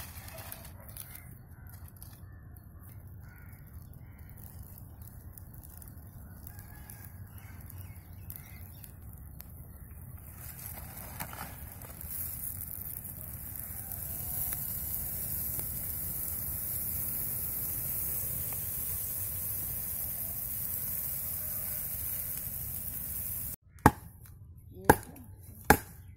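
A steady noisy rush of dry palm fronds burning in the open. Near the end, three sharp chops of a curved knife on roasted palmyra sprouts, about a second apart; these are the loudest sounds.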